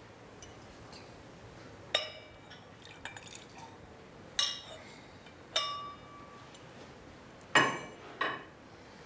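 Glassware clinking: about six sharp knocks, each followed by a brief ringing.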